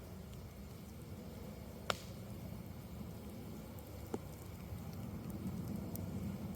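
Campfire wood burning with a steady low rumble, two sharp pops about two and four seconds in, and a few faint crackles.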